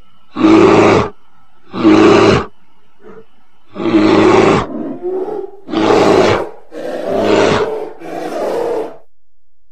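Bear roaring: about six short roars, each under a second long, one after another with brief pauses.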